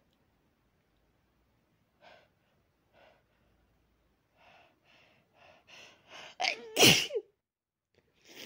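A person sneezing. Faint gasping in-breaths come quicker and louder over a few seconds, then one loud sneeze bursts out about seven seconds in, followed by quiet breathing.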